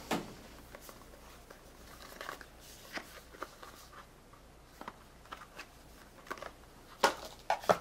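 Faint handling noise from a small cardboard product box being turned over in the hands: light scrapes and soft clicks, with a few sharper clicks near the end.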